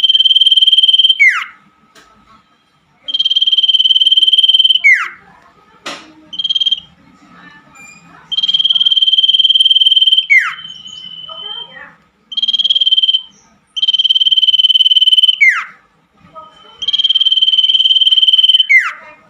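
Common iora (cipoh) song: a long, steady, high whistled note held for one to two seconds and ending in a quick downward slur, repeated about five times with short pauses.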